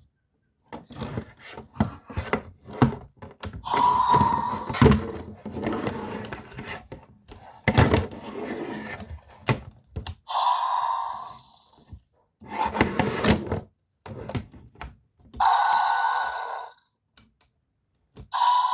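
Hard plastic dinosaur toy figures knocking and clacking together in a mock fight, many sharp knocks in quick succession. In the second half come a few separate rasping sounds, each about a second long.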